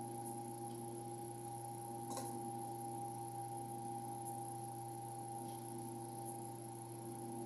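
Steady electrical hum made of several constant tones, with a faint click about two seconds in.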